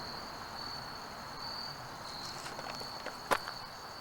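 Steady, high-pitched insect chorus trilling on one even tone, with a single sharp click a little over three seconds in.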